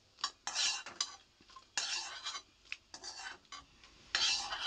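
Metal spoon scraping the inside of a metal pot in several short strokes, scooping out fried dried red chillies, with light clinks as the spoon and chillies meet a metal tray.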